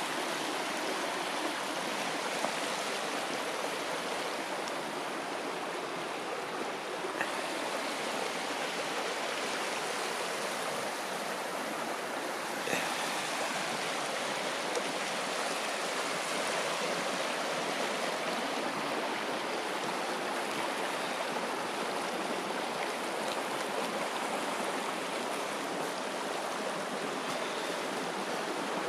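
A small burn running steadily, a continuous rush of flowing water, with a few faint clicks.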